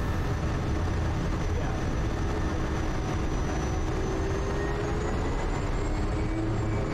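Quest Kodiak's Pratt & Whitney PT6A turboprop running at low taxi power with the propeller turning: a steady low drone, with a thin high whine that rises slightly and falls back near the end.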